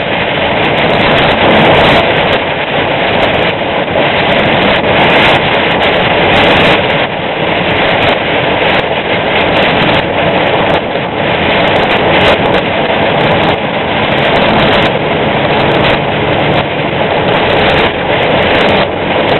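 Semi truck driving on a wet road in heavy rain: a loud, steady mix of engine and tyre noise on the wet pavement.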